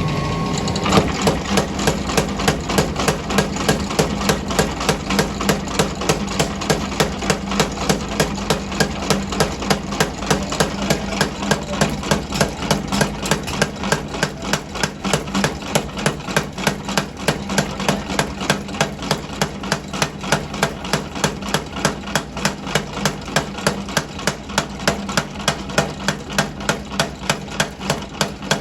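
Steel being forged, struck by hammer blows in a steady, even rhythm of about three a second, over a continuous motor hum.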